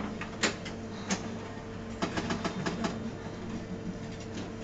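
Stern's The Sopranos pinball machine in play: sharp clicks of the flippers and solenoids as the ball is struck, with a quick rattle of clicks about two seconds in, over a steady hum.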